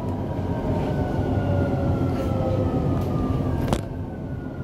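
Dubai Metro train running through an underground tunnel: a steady low rumble with a high whine that slides slowly down in pitch. Nearly four seconds in, there is a click, and the whine jumps back up and starts sliding down again.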